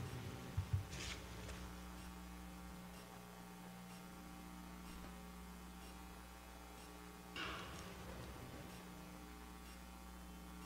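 Steady electrical mains hum from the sound system, with a faint brief noise about a second in and a louder short scuffing noise a little past seven seconds in.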